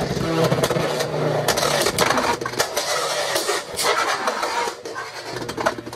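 Two Beyblade X spinning tops, Tyranno Beat 4-80 Rush against Phoenix Wing, battling in a plastic stadium. There is a dense grinding scrape of their tips on the floor, with many sharp clicks as they strike each other and the rail. It eases off about five seconds in.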